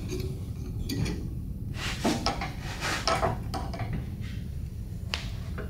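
Ratchet wrench tightening the centre bolt of a jawed gear puller on the crankshaft pulley of a Rotax 277 two-stroke engine. A few scattered metallic clicks and creaks sound as the bolt is forced in to pull the pulley off, over a low steady hum.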